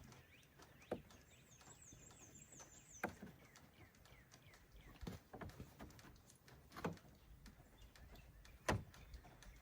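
Faint, scattered clicks and knocks, about five in all with the loudest near the end, from hands handling plastic trim and a camera unit while fitting it to a pickup truck. A faint run of high chirps sounds for a couple of seconds about a second in.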